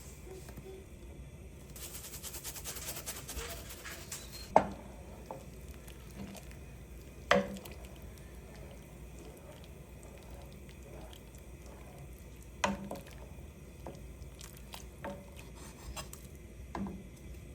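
Cooking sounds: a hissing rush for a couple of seconds, then sharp clinks and knocks of pots, dishes and utensils, three of them louder than the rest, with smaller taps between.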